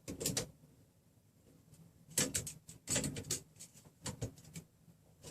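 Light clicks and scrapes of small hard parts being handled, in a few short clusters, as a measuring tool is repositioned on the printer frame's rods.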